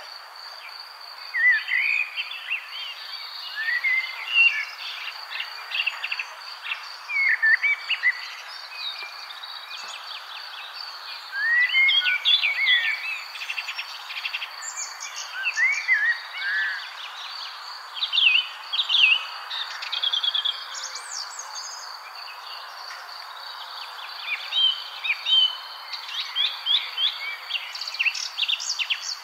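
Birds chirping and calling in short, varied bursts over a steady high insect trill.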